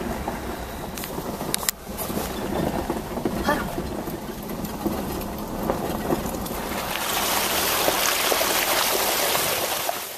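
Jeep Wrangler Sport running at low speed while crawling over rocks off-road, with a few sharp knocks about a second and a half in and a louder rushing noise from about two-thirds of the way through.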